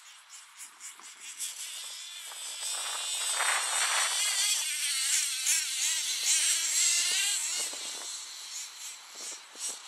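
Hot Bodies Lightning GTX2 nitro RC car with twin .26 engines running at high revs on grass, a high-pitched buzz whose pitch rises and falls with the throttle. It grows louder through the middle, then fades.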